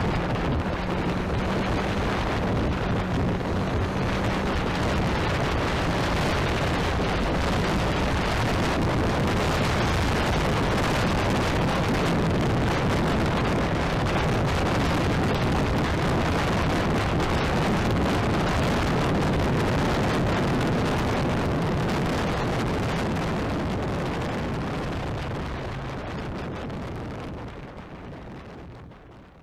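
Motorcycle engine running at a steady cruising pace, with heavy wind rush on the onboard microphone. It fades out over the last few seconds.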